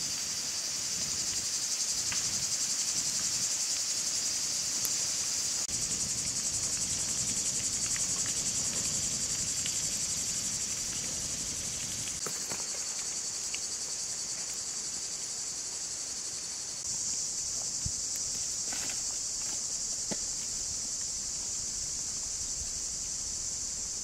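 Steady, high-pitched chorus of insects buzzing in the forest canopy. It steps up in level twice, with a few faint clicks underneath.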